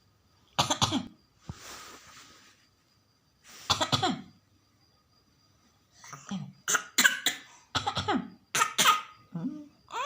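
Young child coughing on purpose, pretend coughs: a single cough about half a second in, a breath, another cough near the middle, then a quick run of coughs near the end.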